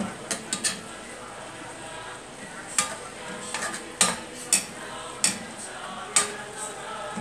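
Metal spoon stirring chicken and onion rings in sauce in a metal pan, scraping and clinking sharply against the pan about nine times at uneven intervals.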